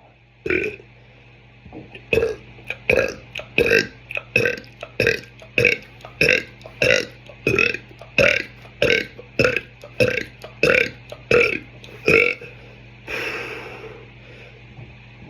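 A man burping in rapid fire: a quick run of short, loud burps, about two a second, for some twelve seconds, ending in a breathy exhale.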